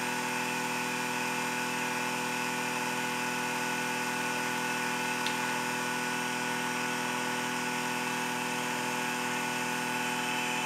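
Home-built three-coil Bedini-style pulse motor running steadily: its small magnet rotor spinning as the transistors pulse the coils, giving an even hum made of several tones. A faint tick about halfway through.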